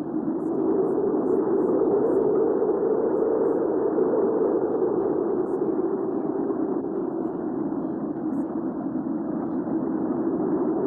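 Recorded hurricane wind ambience: a steady, muffled rushing that slowly swells and eases.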